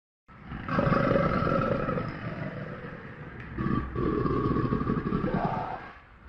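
Crocodile sound effect: a deep, rumbling growl that starts suddenly, eases off, then swells again in a second growl that fades near the end.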